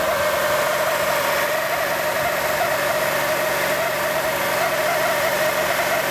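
Honda Elysion Prestige running at about 2,900 rpm with a wavering, warbling hum over the engine note. This is the abnormal noise that appears near that speed, which the owner suspects comes from the automatic transmission.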